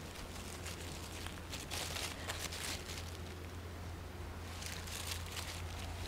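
Dry fallen leaves rustling and crunching underfoot as wire-haired dachshund puppies scamper through forest leaf litter and someone walks after them. The crackling comes in irregular spells with a short lull a little past the middle, over a steady low hum.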